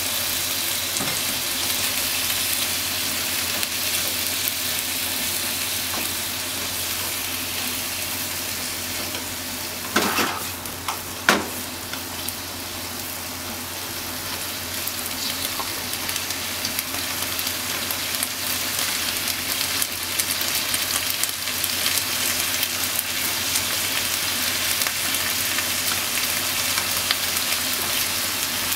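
Sliced pork and onions sizzling in a frying pan as they are stir-fried with chopsticks, a steady hiss. Two sharp knocks about ten and eleven seconds in.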